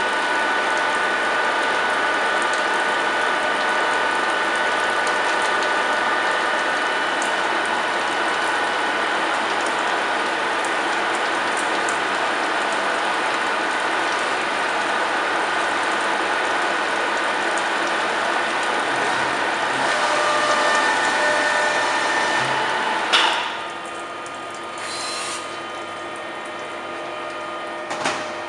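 Deckel FP4 NC milling machine running, a steady mechanical whir with a gear whine, until a sharp clunk about 23 seconds in, after which the level drops to a quieter steady hum, with a short hiss a couple of seconds later.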